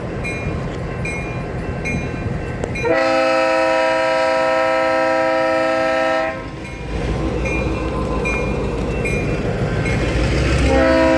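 Freight locomotive approaching a grade crossing: its bell ringing about twice a second, then a long blast of its multi-note air horn lasting about three seconds. The bell rings on over the low rumble of the locomotive, and the horn sounds again near the end.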